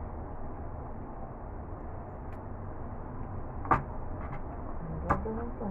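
Meat cleaver chopping raw meat on a cutting board: two sharp chops, one a little past the middle and another about a second and a half later, over a steady low hum.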